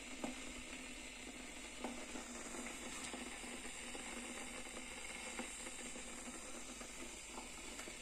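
Hamilton Beach 1.6-litre electric kettle heating a litre of water: a faint, steady hiss from the water warming on the element, still well short of the boil, with a few light ticks.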